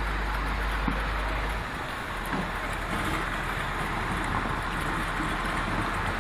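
Logging truck engine running steadily, heard as a constant even noise with a low rumble that eases slightly about two seconds in.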